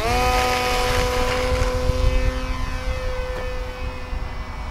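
Electric motor and propeller of an RC trainer plane, throttled up for takeoff: a whine that rises in pitch at the very start, then holds steady at full throttle and slowly fades as the plane climbs away. Low wind rumble on the microphone underneath.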